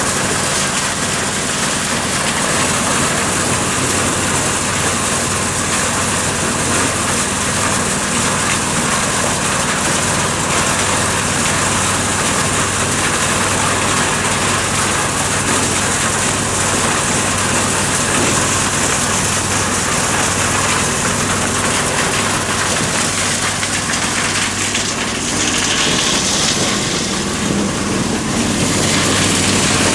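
Engine-driven corn sheller for unhusked cobs running steadily: an engine drone under a dense rushing hiss. The sound dips and shifts briefly near the end, then comes back louder.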